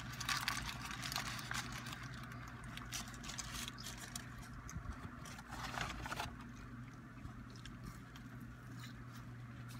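Paper taco wrappers rustling and crinkling in the hands, with chewing, over a steady low hum. The crinkling comes in short patches, busiest just after the start and again about six seconds in.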